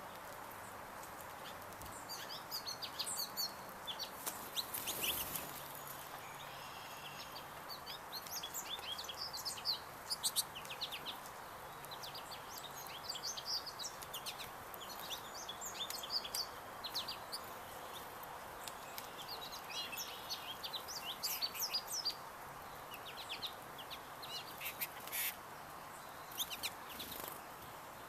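Several small birds chirping and calling, short high notes and quick trills in overlapping runs, over a steady background hiss.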